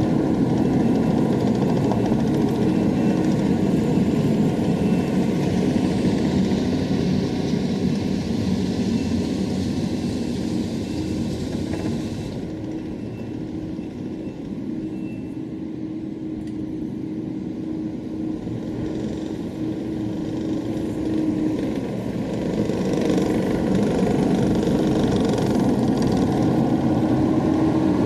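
Heavy earthmoving machine's engine running under load, with a reversing alarm beeping about once a second through the first half. The engine eases off for several seconds in the middle, then picks up again.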